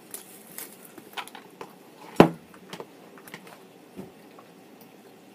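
Close-miked eating sounds of a bean and cheese burrito being chewed: scattered short wet mouth clicks and smacks, with one louder sudden knock about two seconds in.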